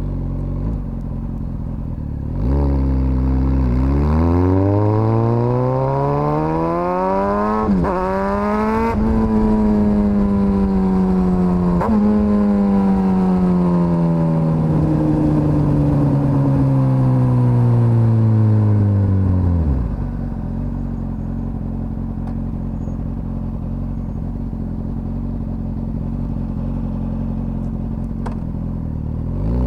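Suzuki GSX-S1000's inline-four engine idling, then pulling hard with rising revs and an upshift about eight seconds in. The revs then fall away slowly over about ten seconds, and it settles to a steady idle before picking up again at the very end.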